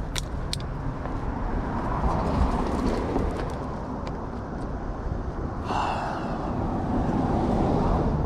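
Road traffic passing: a steady rushing noise that swells and eases, with two sharp clicks right at the start and a brief brighter hiss with a faint squeal about six seconds in.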